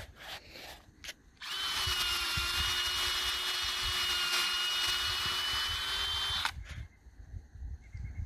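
Cordless drill boring a tap hole into a maple trunk: a steady whine that starts about a second and a half in and runs for about five seconds before stopping.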